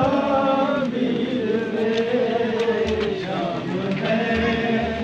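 Men chanting a noha, a mournful Muharram lament, in long held notes, with a few dull low thumps beneath.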